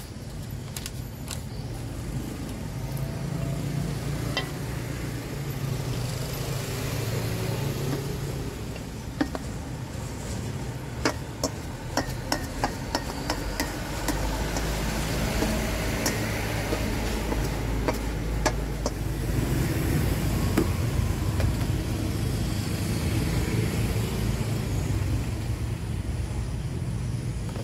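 Motor vehicles running past on the road, the engine rumble swelling early on and again through the second half. In the middle comes a run of about a dozen sharp clicks from a wooden spoon knocking against a stainless steel bowl as food is scooped out.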